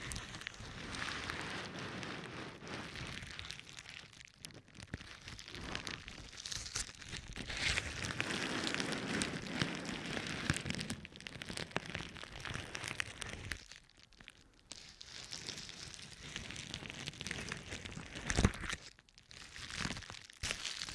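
Plastic bubble wrap rubbed and crinkled against the microphone, a continuous crackling rustle of many small clicks that eases off in short lulls, with one sharper snap near the end.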